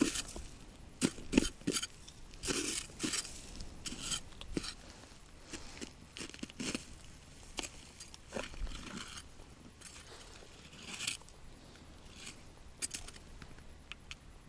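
Irregular scrapes and crunches, close together in the first few seconds and sparser and fainter later.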